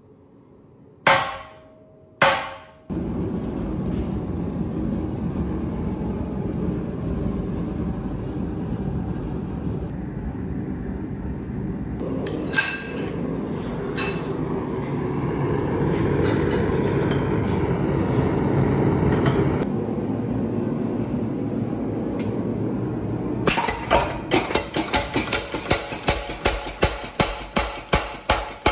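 Two heavy hammer blows on hot steel at the anvil, then a steady rushing noise. Near the end a mechanical power hammer starts striking a glowing steel bar in a fast even rhythm, about four blows a second.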